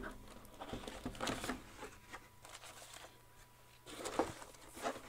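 Intermittent rustling and handling noise as the plastic-bagged runners (sprues) of a plastic model kit are shuffled in their cardboard box: a click at the start, then several short bursts of rustling.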